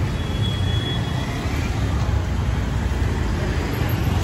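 Steady street traffic noise: a continuous low rumble of passing vehicles on a busy city road.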